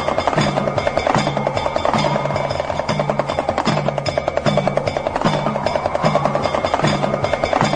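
Damru, the hourglass-shaped hand drum, rattling in a fast continuous roll of strokes. Under it a low drum pulse repeats a little more than once a second, with steady ringing tones held above.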